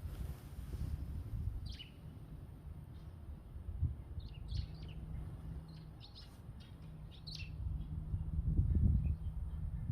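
Wind gusting over the microphone as a low, uneven rumble that swells near the end. Small birds chirp a series of short, high calls in the middle.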